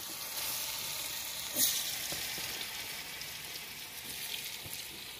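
Oil sizzling and bubbling as food deep-fries in a steel wok over a wood fire, a steady hiss with one sharp click about a second and a half in.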